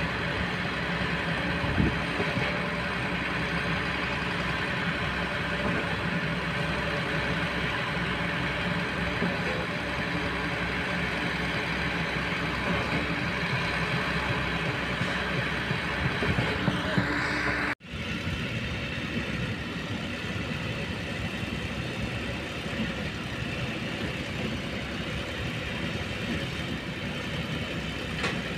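Kobelco long-reach excavator's diesel engine running steadily as it works. A little over halfway through, the sound cuts abruptly to a different steady engine drone, from a concrete mixer truck and concrete pump.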